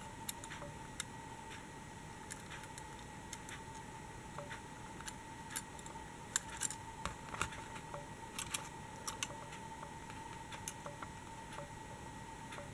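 Small, irregular clicks and taps as small diecast toy train coach and bus models are handled and turned over in the fingers. A faint steady high whine runs underneath.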